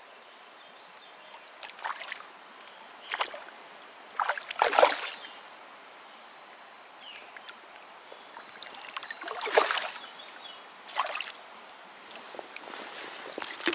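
Water splashing in short bursts over the steady wash of a shallow stream as a hooked brown trout is played to hand. The biggest splashes come about four and a half and nine and a half seconds in.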